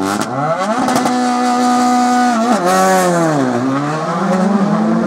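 Škoda Fabia R5 rally car's engine revving hard as it pulls away. The revs climb and hold high, fall about two and a half seconds in, then climb again as it accelerates once more.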